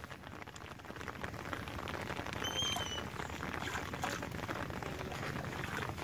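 Steady patter of rain falling on the shallow water of a flooded rice field. A short, faint high whistle comes about two and a half seconds in.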